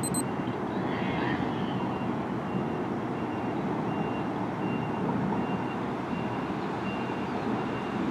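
Steady low rumble of thunderstorm ambience outdoors. A faint high beep repeats at even intervals throughout, the pattern of a vehicle's reversing alarm.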